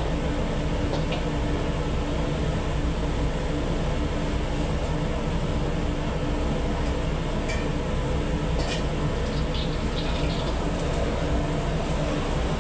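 Steady roar of a gas wok burner with a low hum running through it, and a few light clinks of a metal ladle against the wok.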